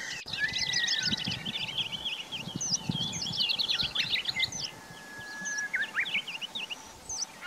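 Several songbirds chirping and twittering in quick high chirps and short trills, with a few longer whistled notes. The chorus thins out about two-thirds of the way through.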